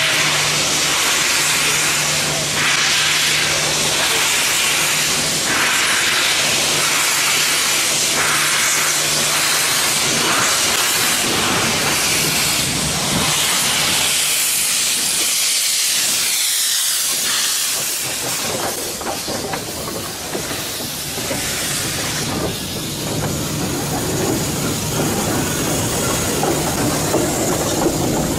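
A steady loud hiss, with a low hum under it for about the first ten seconds; the low end drops away briefly about halfway through.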